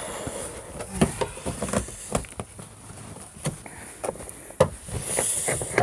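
A scattering of sharp knocks and clicks, about one every second, from a metal pry bar working against a truck's body and trim.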